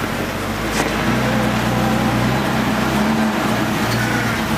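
Rock-crawling Jeep's engine running steadily under load as it climbs a steep rock ledge, with one sharp knock a little under a second in.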